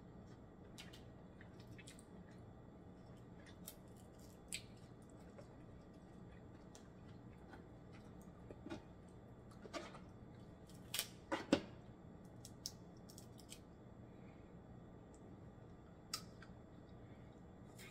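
Close-miked eating sounds of snow crab meat taken from the fingers: scattered short wet mouth clicks and smacks with quiet chewing, a few louder smacks bunched together about eleven seconds in.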